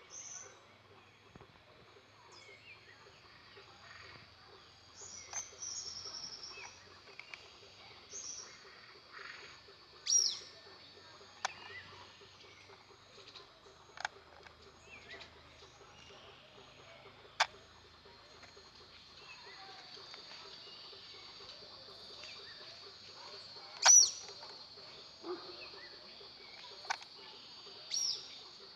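Birds chirping: short high calls every few seconds, the loudest about ten seconds in and near the end, with a few sharp clicks between them.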